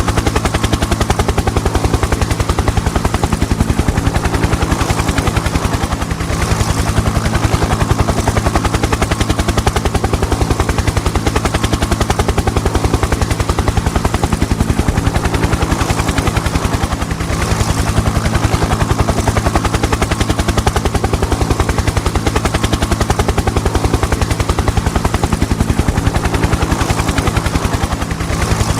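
Helicopter rotor running steadily: a fast, even chop of the blades over a steady low drone, dipping slightly three times.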